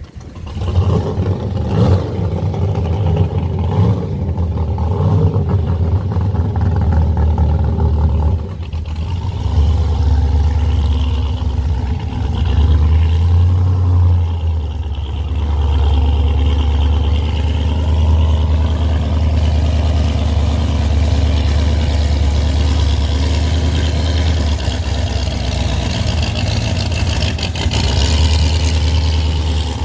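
Fountain offshore race boat's engine running loud with a deep low rumble, blipped and revved unevenly for the first several seconds, then settling into a steady run.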